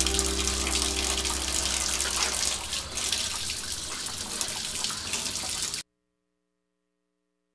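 Water running from a tap into a plastic basin and splashing over rusty metal fan parts being rinsed. It cuts off suddenly about six seconds in.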